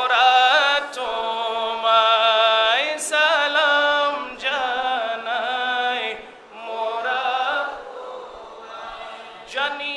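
A man's voice chanting a Bengali devotional salam to Imam Hussain, without instruments, in long held notes with a wavering ornament, broken by short breaths between phrases.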